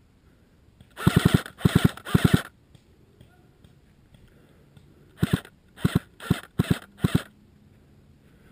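Airsoft electric rifle firing in short automatic bursts: three quick bursts of rapid clicking shots about a second in, then five shorter bursts about five seconds in.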